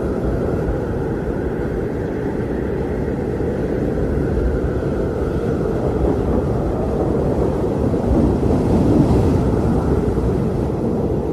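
Steady low rumbling noise, swelling slightly about eight to nine seconds in.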